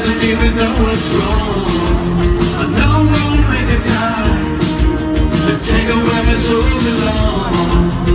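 Live rock band playing, with electric guitars, bass and a steady drum beat, heard through loud concert speakers from within the audience.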